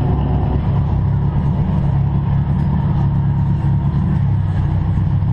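V8 engine idling with a steady, loud low rumble.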